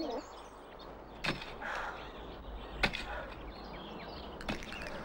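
Pickaxe striking hard ground three times, about a second and a half apart, each a sharp hit.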